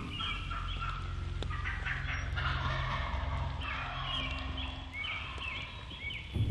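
Eastern wild turkey gobbling, a rough rattling call in the middle, with runs of short falling yelping notes before and after it.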